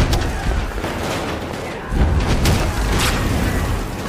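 Gunfight in a film soundtrack: several loud pistol shots with bullet impacts, one right at the start and more about two to three seconds in, each followed by a low rumble.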